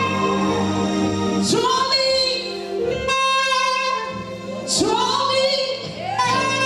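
Gospel worship music: a singer holding long notes over sustained instrumental accompaniment.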